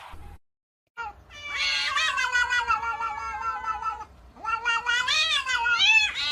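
A cat yowling in two long, drawn-out calls: the first held fairly steady, the second wavering up and down in pitch.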